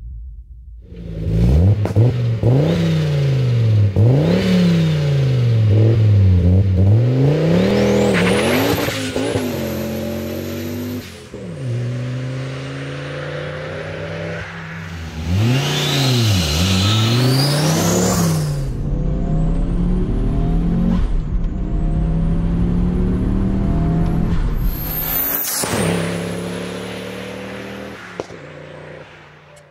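Tuned 2.2-litre five-cylinder turbo engine of a 1992 Audi S2 Coupé accelerating hard, its revs rising and dropping repeatedly as it shifts through the gears. A high turbo whistle climbs with the revs, and the sound fades near the end.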